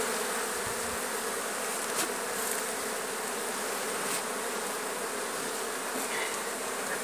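A honeybee colony in an opened hive buzzing steadily, many bees humming over the exposed frames.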